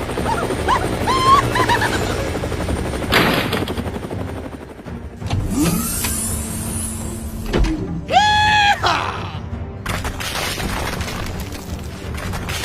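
Background music mixed with animation sound effects, including a loud crash about three seconds in and short sliding pitched tones.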